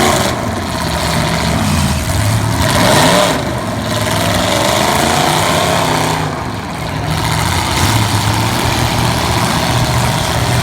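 V8 demolition derby cars' engines running and revving, pitch rising and falling as the cars back up and charge.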